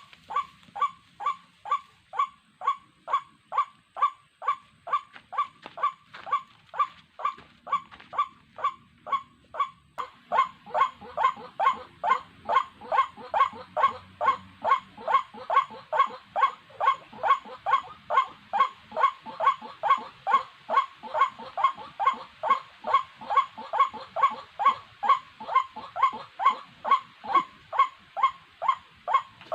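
White-breasted waterhen calling: a steady run of short, repeated croaking notes at about two a second. The calls become louder and slightly quicker about ten seconds in.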